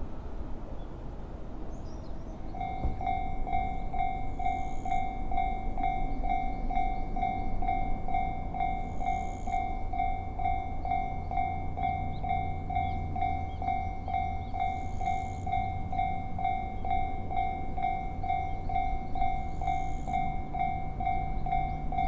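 Japanese railroad crossing warning bell starts about two and a half seconds in, ringing an even, rapid ding-ding-ding with a clear ringing tone. A low rumble builds underneath it from about eight seconds in.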